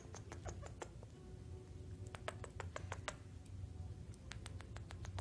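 Quick wet kissing smacks from a person's lips, in three short bursts of several clicks each, over a faint steady low hum.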